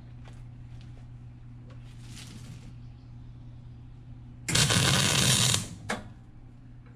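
Miller-Matic 252 MIG welder striking an arc on the steel hitch plate. It lays a loud tack weld of about a second, then a brief second blip of arc just after. A steady low hum runs underneath.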